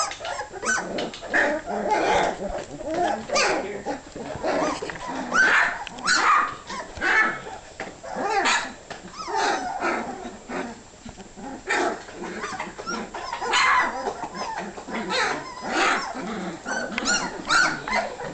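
A litter of Great Dane puppies barking, yapping and whining over one another, hungry and waiting for food.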